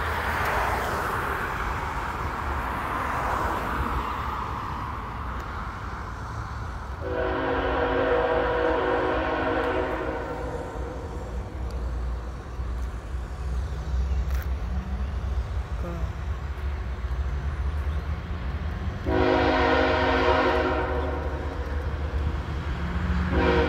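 Freight train's multi-tone air horn sounding long warning blasts: one of about three seconds, a shorter one about twelve seconds later, and a third starting at the end. A steady low rumble from the passing train runs underneath.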